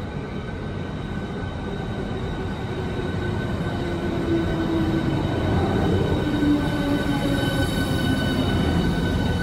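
Southeastern Class 395 Javelin, a Hitachi high-speed electric multiple unit, running into the platform. The rumble grows louder as the cab comes past, and a motor whine falls slowly in pitch as the train slows.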